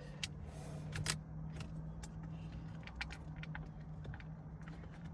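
Scattered light clicks and taps of small parts and hand tools being handled while steering-column fasteners are worked loose, the sharpest about a second in, over a steady low hum.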